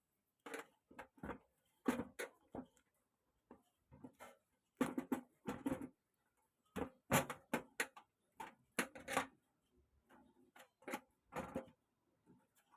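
Irregular clicks, taps and knocks of hard plastic and metal parts being handled inside an opened LED TV, coming in uneven clusters.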